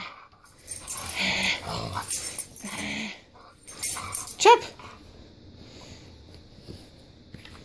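Dog play-growling and huffing while tugging on a toy, with a short rising high-pitched cry about four and a half seconds in; quieter in the last few seconds.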